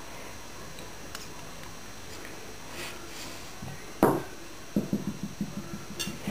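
A sharp knock as a small plastic plate is set down on a blanket-covered floor, followed by a quick run of soft taps, about seven a second, as a Border Collie puppy paws and noses at the plate.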